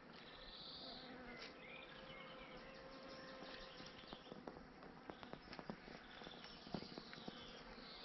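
A bee buzzing past with a steady hum for the first few seconds, over faint bird chirps. In the second half come a few sharp snaps and crackles of footsteps on the forest floor.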